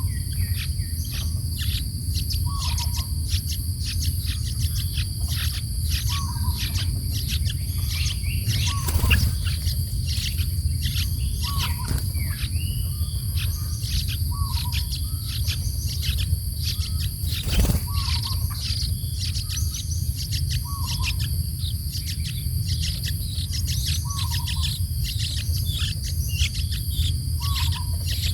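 Birds chirping busily, with a short lower note repeating every two to three seconds, over a steady high insect drone.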